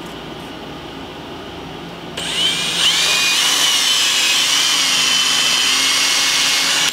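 Makita cordless drill with a 1/8-inch tapered bit boring a hole into a dried gourd's shell. The drill starts about two seconds in, its whine climbing as it spins up, then runs steadily.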